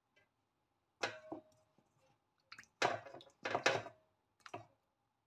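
Wet squelching and dripping as marinated raw chicken wings are picked up out of a stainless-steel bowl of soy marinade. There are about five short squelches, spaced unevenly.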